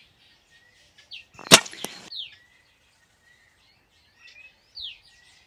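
Tranquilliser dart gun fired once: a single sharp crack, followed a moment later by a fainter click.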